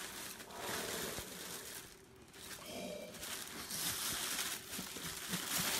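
Clear plastic bag crinkling and rustling as gloved hands work it off a large statue, with a brief lull about two seconds in.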